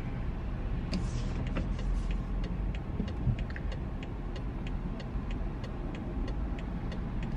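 Car interior while driving in traffic: a steady low road and engine rumble, with the turn-signal indicator clicking evenly, about three clicks a second, from about a second in.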